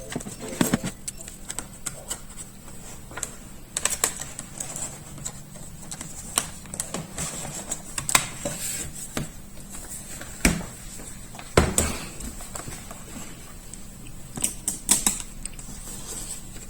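Irregular light clicks and taps of hands and small tools working on an opened laptop's plastic and metal parts, over a faint steady hum.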